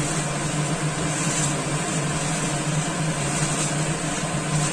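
A steady mechanical hum, with faint crackling of crisp fried noodles being crushed by hand on a steel plate.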